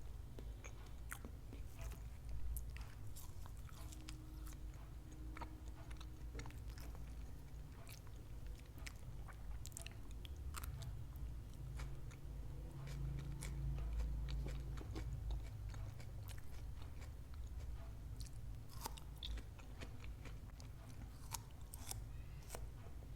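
Close-miked eating: bites and chewing with many short, crisp crunches scattered through, over a low steady rumble.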